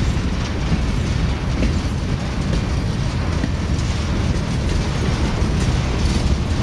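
Freight train of boxcars and tank cars rolling past: a steady rumble of steel wheels on rail, with irregular clicks as the wheels cross rail joints.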